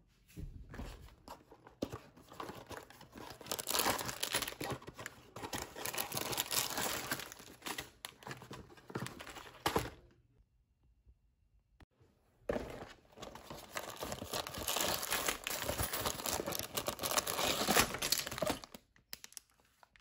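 Cardboard LEGO set boxes being torn open and the plastic bags of bricks inside crinkling, in two bouts with a short quiet gap between.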